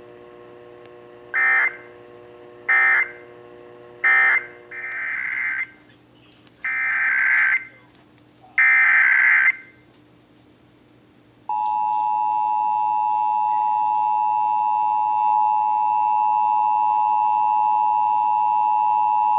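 Emergency Alert System data bursts: three short buzzing bursts closing one station's test, then three longer bursts opening the next station's test, followed by the EAS two-tone attention signal held steady for about eight seconds, starting a little past halfway.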